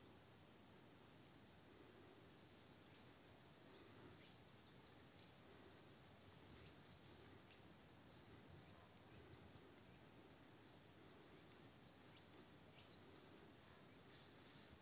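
Near silence: faint outdoor ambience, a steady high hiss with a few faint ticks scattered through it.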